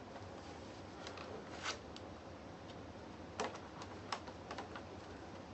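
Guitar picks clicking and scraping against the plastic case of an electric unicycle as its tabs are pried apart: scattered light clicks, the sharpest about one and a half and three and a half seconds in.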